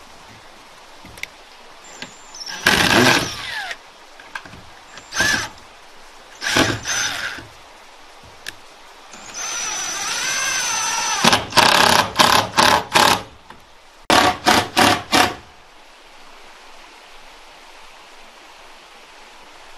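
A power tool run in short trigger bursts: a few single bursts, one longer run of about two seconds near the middle, then two quick series of rapid bursts, about four or five each.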